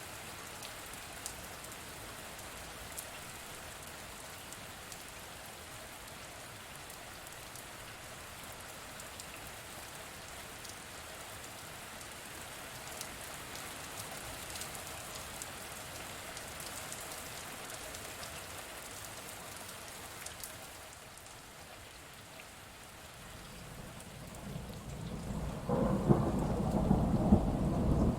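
Steady rain falling, an even hiss with scattered individual drops ticking. Near the end a roll of thunder builds into a loud, deep rumble.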